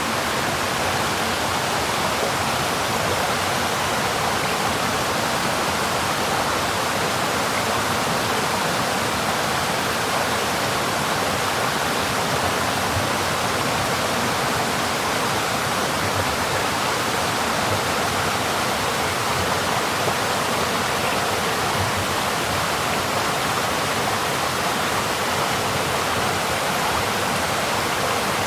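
Water flowing in a mountain stream, a steady, even rush with no breaks.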